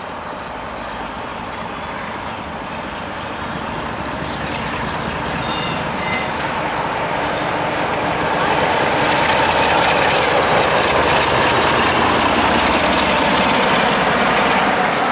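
Class 47 diesel-electric locomotive's twelve-cylinder Sulzer engine working as it hauls a train of coaches towards and past the listener, growing steadily louder as it comes close.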